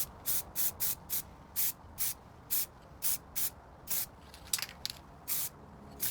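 Aerosol spray paint can hissing in short, quick bursts, about two a second.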